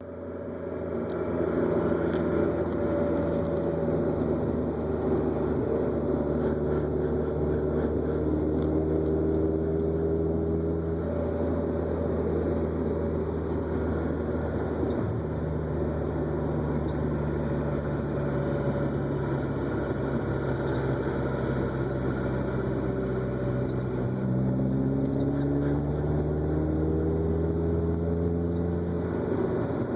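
Mazda Miata's four-cylinder engine running steadily, with a fainter tone above it that slides in pitch, drifting down through the first third and rising again near the end. This is the car's unexplained odd noise.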